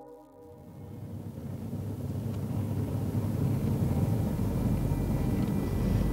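Low rumble of road and engine noise inside a moving car's cabin, fading in over the first couple of seconds and then steady.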